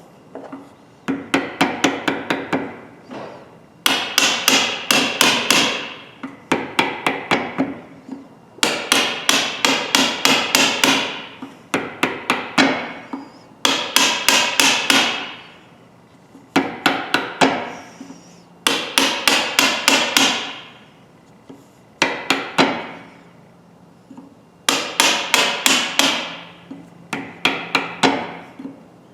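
Hammer blows on a pair of rust-seized pliers clamped in a vise, struck to free the frozen joint. The blows come in about a dozen quick runs of several rapid strikes each, with metallic ringing.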